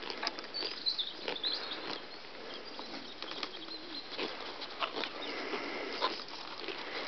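Close, irregular crackling and rustling of grass being bitten and torn as a lamb grazes right up against the microphone.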